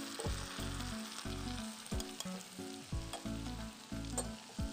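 Garlic paste frying in hot oil in a small tempering pan, sizzling steadily while it is stirred with a steel spoon.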